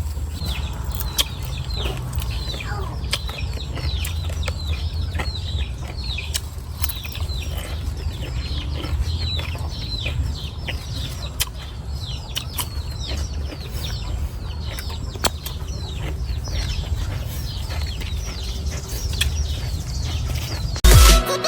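Birds chirping: a long run of short, high, falling chirps, several a second, over a low rumble with scattered clicks. Louder sound cuts in right at the end.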